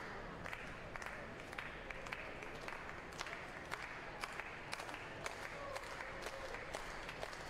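Baseball crowd in the stands clapping between pitches: scattered sharp claps, several a second, over a steady crowd hum, with two strikes on the batter.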